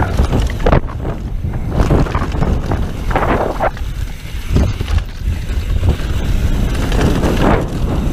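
Mountain bike riding fast down a dirt downhill trail: wind buffeting the camera's microphone and tyres rumbling over dirt and leaves, with irregular surges of noise from bumps.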